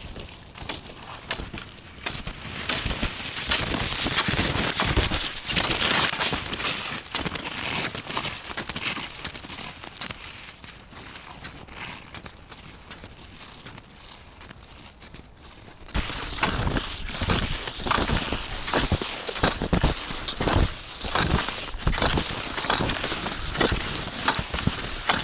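Touring skis crunching and swishing over snow as he skis along, a crackly crumpling sound of many short strokes; it eases off for a few seconds in the middle and picks up again about two-thirds of the way in.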